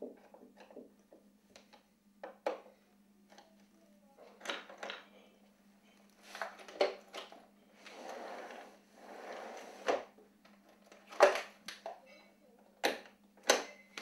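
A screwdriver turning a screw into a metal lock block on an aluminium sliding-door track, with small ticks, then scattered sharp metal clicks and knocks and a longer scraping rustle about halfway through.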